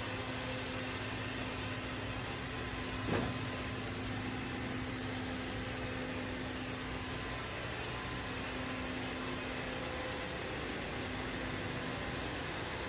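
Kilgone robot vacuum running with a steady whirring hum and hiss, with one short knock about three seconds in.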